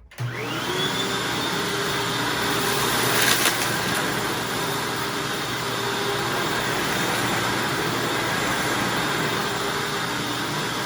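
Hoover Anniversary upright vacuum cleaner switched on, its motor whine rising to full speed within the first half second and then running steadily on the medium carpet setting. There is a brief louder burst of noise about three seconds in as debris is pulled up.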